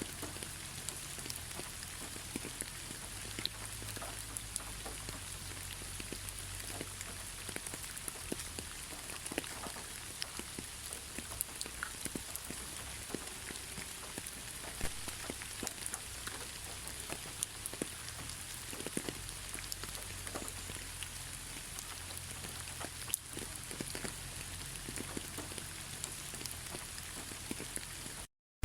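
Steady rain falling: a dense, even hiss with many scattered sharp drip ticks. It cuts out completely for a moment near the end.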